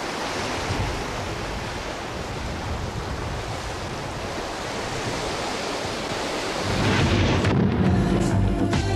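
Steady rush of sea surf on a beach, with wind. About seven seconds in, music starts.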